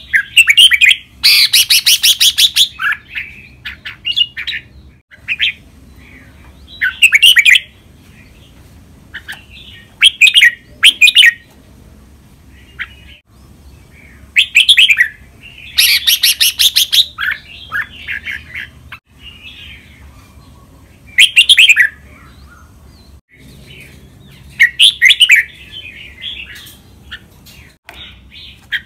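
Caged red-whiskered bulbul singing short, loud song phrases every few seconds. Twice a longer, harsher rapid rattling burst comes in, about a second and a half in and again about halfway through.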